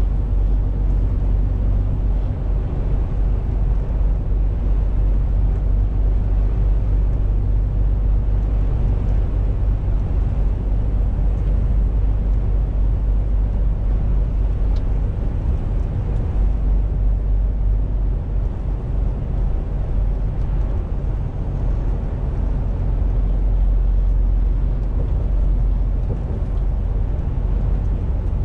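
MAN TGX 470 truck's straight-six diesel running at a steady cruise, heard from inside the cab as a low, even drone mixed with road noise.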